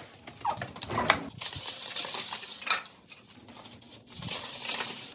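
A Doberman turning in circles on a tile floor: claws clicking and tapping, with the light metallic jingle of collar tags as it moves.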